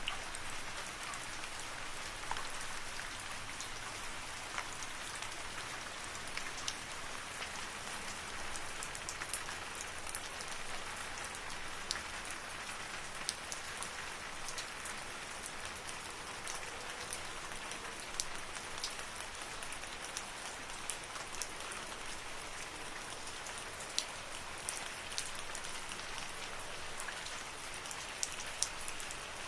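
Steady rain falling in a forest, an even hiss with scattered sharper taps of individual drops.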